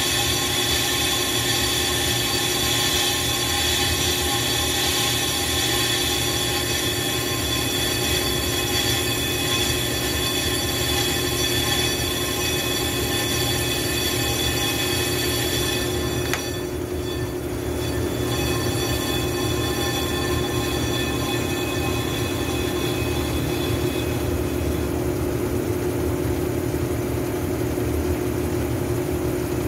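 Brake lathe turning a brake rotor disc while its cutting bit refaces the surface: a steady ringing whine made of many held tones. The high ringing drops out briefly about sixteen seconds in and thins out from about twenty-five seconds in.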